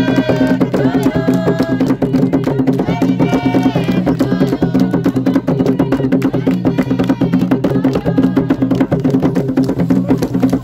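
Rapid hand drumming on a wooden drum with a cowhide head, with hand claps and group singing that comes in phrases near the start, about three seconds in and about seven seconds in.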